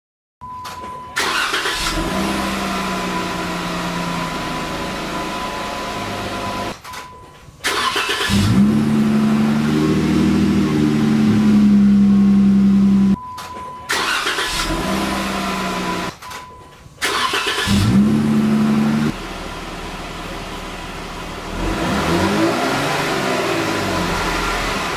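The 3.6-litre V6 of a 2014 Jeep Wrangler runs through a 3-inch aFe Hi-Tuck cat-back exhaust, revved up and held at higher RPM in several short takes with abrupt breaks between them. Near the end one rev rises and falls. A thin steady high tone runs under the engine throughout.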